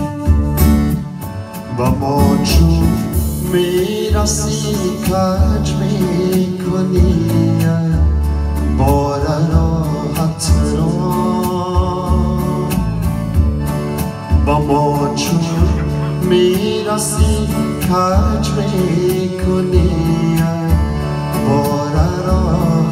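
Live keyboard music from a Korg keyboard: a steady pulsing beat in the bass under a melody line that wavers and bends in pitch.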